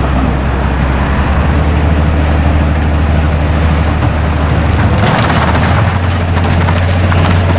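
Railway rotary snow blower running hard as it pushes through hard-packed snow: a loud, steady low engine drone under a dense hiss and crackle of snow and ice being cut and thrown. About five seconds in the drone steps up in pitch and the hiss grows louder.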